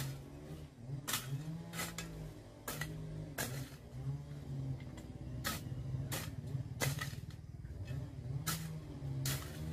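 An engine running with its pitch rising and falling. Over it come about ten sharp knocks or clacks at uneven spacing.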